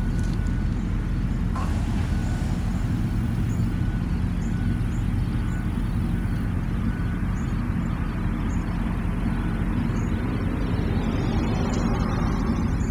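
Steady low rumble of road traffic, with faint short high chirps every second or so.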